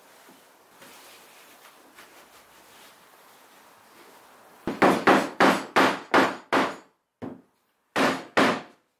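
Rubber mallet knocking a Baltic birch plywood part down into its slot in a plywood panel. After a few seconds of faint hand handling, there is a quick run of six knocks, one lighter knock, and then two more near the end.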